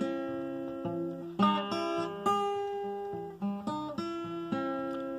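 Acoustic guitar strummed in a folk song's instrumental passage: a handful of chords, each struck and left to ring, with no singing.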